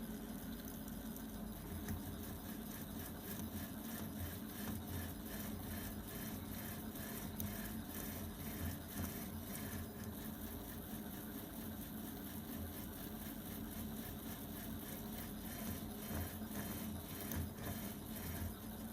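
Prusa i3 3D printer driven by Leadshine servo motors, printing: a steady motor hum broken by quick, irregular changes as the axes move back and forth.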